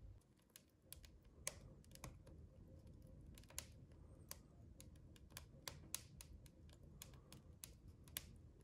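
Wood fire crackling inside a wood-burning stove: irregular sharp pops and ticks, a few each second, over a faint low rumble.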